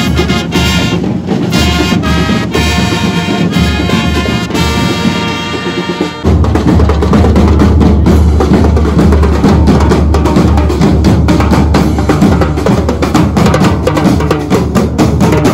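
Marching band trumpets playing a tune together. About six seconds in this gives way abruptly to the drum line, with bass drums and tenor drums beating a loud, steady marching rhythm.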